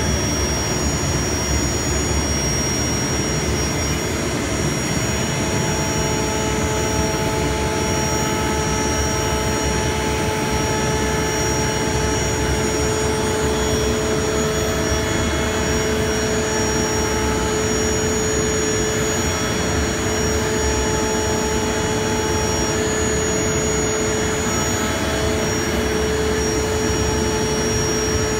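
CNC router spindle running at a steady speed with a 2-inch insert carbide bit, profile-cutting around a hardwood cutting board: a steady whine over a rushing noise.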